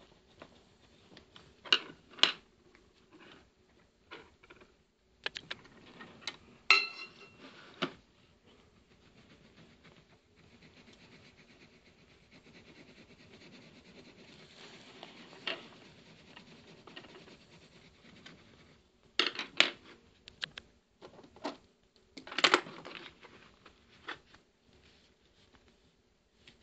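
Soft scratching of colouring on sketchbook paper, with scattered sharp clicks and taps, loudest a couple of seconds in, about seven seconds in, and again around twenty seconds in.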